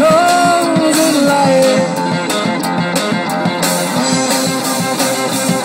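A live rock band playing: electric guitars through small amps and a drum kit. A held note slides down and trails off in the first second or so, and the band plays on instrumentally after that.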